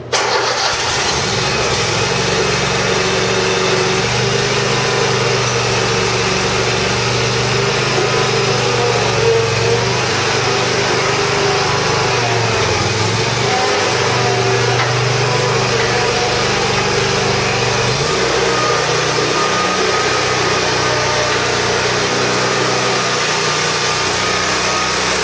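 Kohler Command 27 hp air-cooled V-twin engine of an Exmark Lazer Z zero-turn mower starts up and runs steadily. Its speed shifts a few times in the middle.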